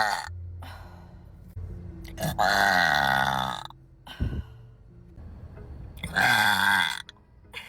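A person burping loudly: two long, drawn-out belches of about a second or more each, their pitch sliding downward, with the tail end of another right at the start and a short grunt-like burst between them.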